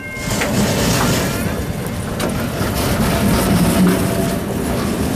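PCC streetcar rolling along the track, a steady rumble of steel wheels and traction motors.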